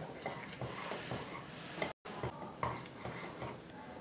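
A spoon stirring and scraping through a pan of thick, bubbling curdled-milk and sugar mixture for kalakand as it cooks down, with short irregular scrapes and a sizzle underneath. The sound cuts out for an instant about halfway through.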